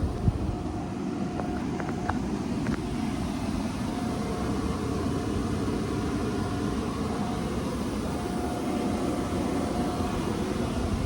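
Steady rushing air and motor noise of compressed-air spray painting, as clear coat is sprayed in an inflatable paint booth. There are a few light clicks about two seconds in, and a faint steady tone comes and goes.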